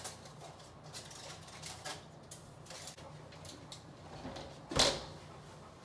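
Light metal clicks and taps of a cookie sheet and oven rack being handled in an electric oven, then one sharp, louder clank a little before the end.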